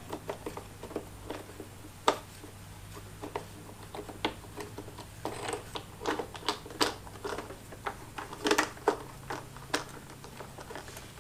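Irregular plastic clicks and rattles as the air filter cover on a gas leaf blower is pried and worked loose by hand, with one sharper click about two seconds in and a quick run of clicks later on, over a low steady hum.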